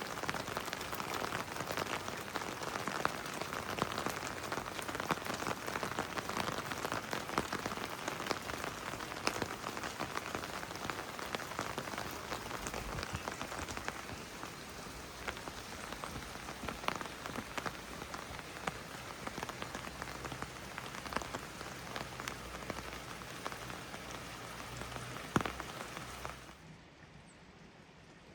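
Heavy rain falling, a dense steady patter with many individual drops ticking close by. Near the end it drops suddenly to a much quieter hiss.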